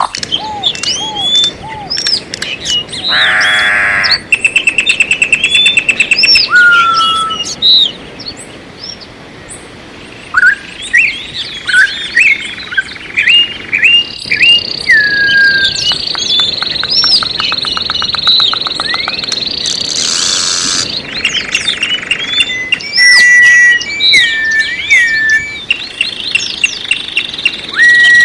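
Several songbirds singing together: many short chirps sliding up and down in pitch, with fast trills mixed in. A long steady high whistle holds for several seconds mid-way, and a brief harsh buzzy call comes about 20 seconds in.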